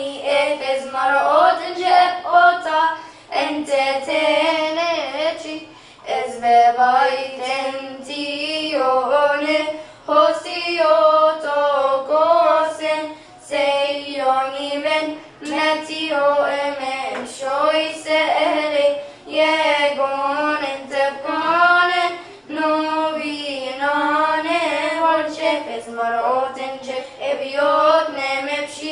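Two young girls singing a Coptic church hymn together, unaccompanied, in phrases of held, wavering notes with short breaks between them.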